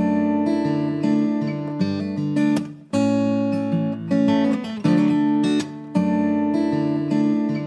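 Background music: acoustic guitar playing a chord pattern, with the chords changing about once a second and no singing.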